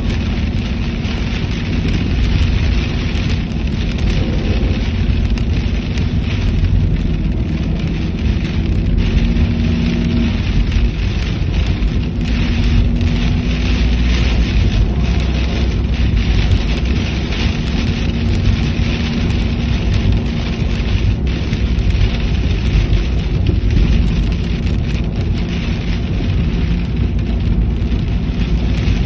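Flash-flood water: a loud, steady rushing noise with a deep rumble underneath, without letup.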